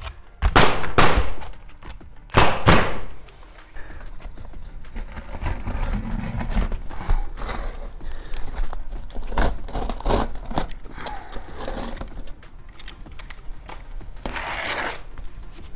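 Pneumatic roofing nailer firing twice within the first three seconds, each shot a sharp bang. Then quieter scraping and rustling as an asphalt shingle is trimmed with a hook-blade knife and pressed into place around a pipe boot, with one short louder scrape near the end.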